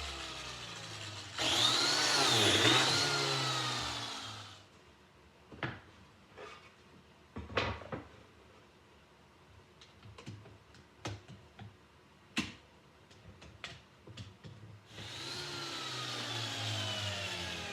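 Biscuit joiner motor running, with a loud stretch about a second and a half in where its pitch dips and recovers as it cuts a slot, then winding down. Then comes a quieter stretch of scattered knocks and clicks as the wood is handled, and the motor starts again near the end.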